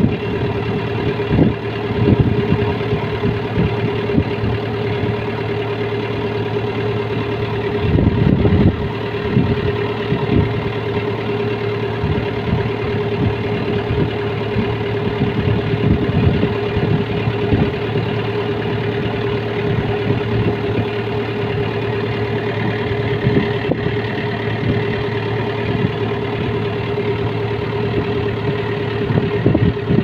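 Kubota DC70 Plus combine harvester running steadily under load while cutting and threshing rice: a constant engine and machinery drone with a steady hum. Low rumbling gusts of wind on the microphone come and go, strongest about eight seconds in.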